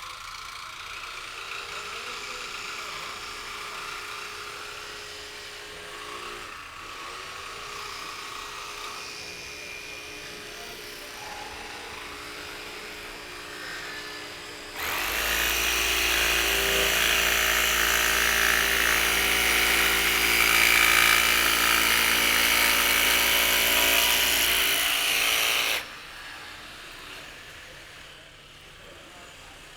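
Electric jigsaws fitted with thin scroll blades cutting plywood, their motors running steadily. About halfway through, a nearby saw starts up much louder, runs for about ten seconds and stops abruptly; quieter saws carry on.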